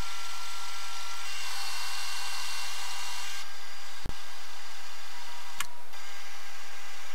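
Milling machine spindle running at high speed with a steady high whine while a small cutter works a hole in a metal part. The sound dips briefly about four seconds in, and there is a short click about a second and a half later.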